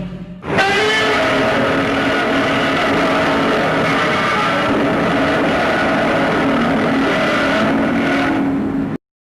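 Godzilla roar sound effect: one long pitched roar that starts about half a second in after the previous roar tails off, and cuts off suddenly near the end.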